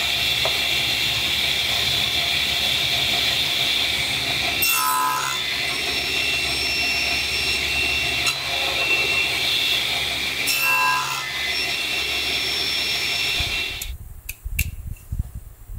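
Table saw running steadily, its blade cutting through wood in a sled twice, about five and eleven seconds in. Near the end the machine noise gives way to a few sharp clicks as a knife trims rattan cane webbing.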